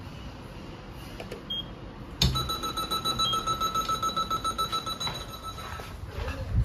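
Lift alarm bell ringing: it comes in suddenly with a knock about two seconds in, a steady high ring pulsing several times a second for about three and a half seconds, then stops.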